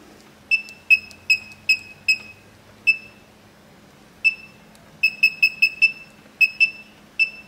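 Short high beeps from a MicroTech Pro Dash touchscreen, one for each tap on its +Inc and −Dec keys, as the neutral-gear voltage value is stepped up and back down during gear-position calibration. There are about sixteen beeps, some spaced out and others in quick runs of four or five.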